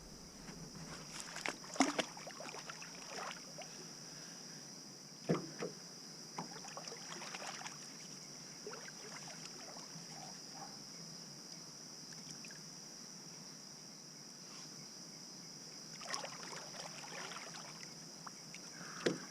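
Irregular splashing and sloshing of water as a person bathes in the river, with louder splashes about 2, 5 and 16 seconds in. Under it runs a steady high chirring of night insects.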